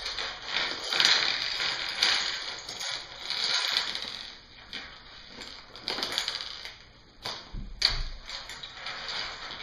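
Plastic Lego bricks clicking and clattering as they are handled, with the rustle of plastic bags; one sharper click about eight seconds in.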